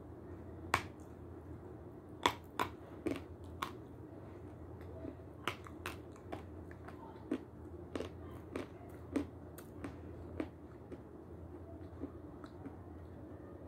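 Close-up crunching of a hard white block of Severskiy edible chalk being bitten and chewed: about fifteen short, sharp crackles at irregular intervals over a steady low hum.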